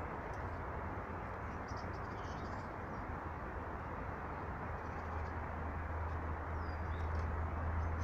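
Faint, short high calls of small songbirds, a few times, one a quick falling note near the end, over a steady rushing background noise and a low hum.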